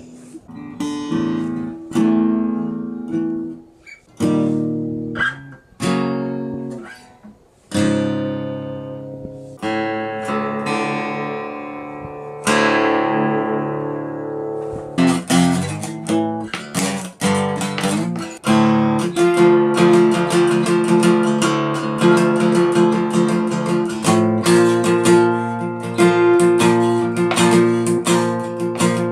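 Acoustic guitar played solo. For about the first half, single chords are plucked and left to ring out; from about halfway the playing turns into quick, continuous strumming.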